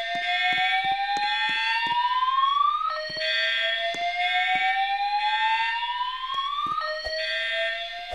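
Fire alarm voice-evacuation speakers sounding a slow whoop tone: a rising sweep that climbs for about four seconds, drops back to the bottom and starts again about three and seven seconds in. This is the alarm tone that fills the gap between the recorded evacuation messages. A steady higher tone and light clicks sound along with it.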